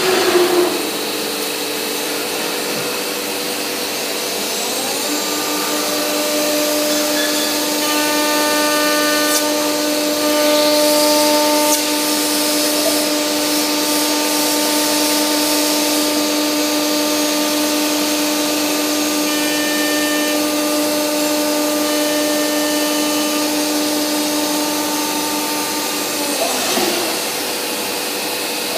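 CNC woodworking machining centre running under a steady rushing machine noise. About five seconds in its spindle comes up to a steady whine, which holds and then winds down about 26 seconds in.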